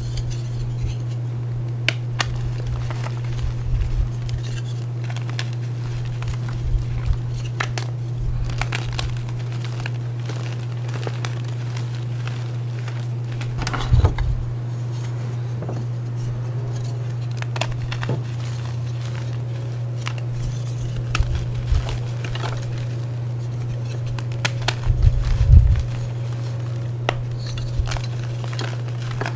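Bars of reformed gym chalk crushed by hand: scattered crunchy, glassy cracks and crumbling. The loudest crunches come about fourteen seconds in and around twenty-five seconds in, over a steady low hum.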